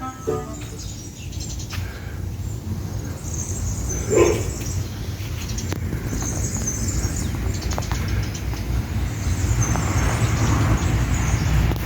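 Birds chirping over a steady low rumble, with one brief louder call about four seconds in.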